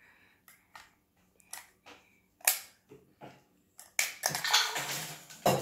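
Scattered light clicks and knocks, then a denser, louder stretch of rustling and clatter from about four seconds in.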